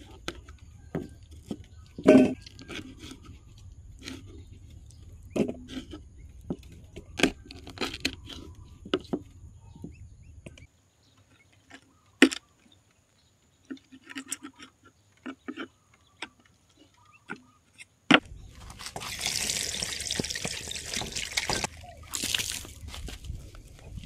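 Kitchen knife chopping on a wooden cutting board: irregular taps and knocks with short pauses. About eighteen seconds in, a few seconds of rushing noise take over, with a shorter burst soon after.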